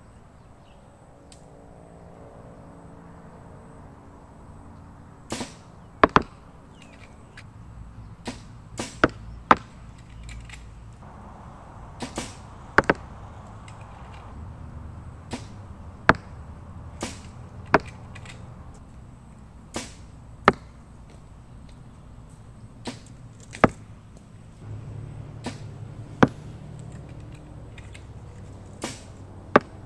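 Compound bows being shot: a series of sharp cracks as arrows are released, many coming in quick pairs, over a low steady background.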